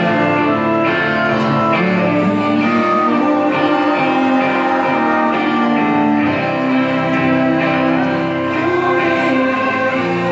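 Live pop-rock band playing a song, guitars and drums with singing, heard from across a large hall.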